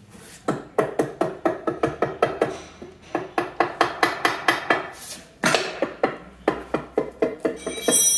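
Soft-faced mallet tapping lightly along the aluminium cam cover of a Jaguar XK120's twin-cam six, a quick run of hollow-sounding knocks, about four or five a second, with a short break about five seconds in. The hollow ring all the way round shows the cover has broken free of its sealant and is ready to lift off.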